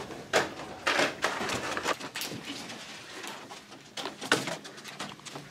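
Rustling and soft bumps of a bunch of balloons being carried, the large foil balloons crinkling against each other and the latex ones. The noises come irregularly, several in the first two seconds and again near the end.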